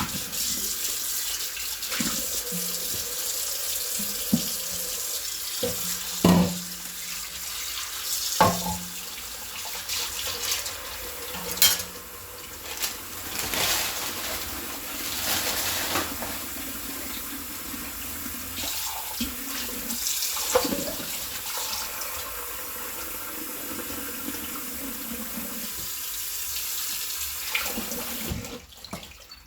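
Hand washing of plates and bowls at a sink under a running tap: steady running water with sponge scrubbing and splashing, and a few sharp clinks of dishes knocking together, the loudest two about six and eight seconds in. The water stops just before the end.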